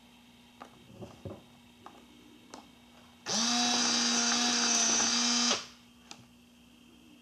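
The lens motor of a Fujifilm instax WIDE 300 instant camera runs as the lens barrel extends at power-on. It makes a steady whine of about two seconds, rising in pitch briefly as it starts and cutting off sharply. Before it come a few light clicks as the camera is handled.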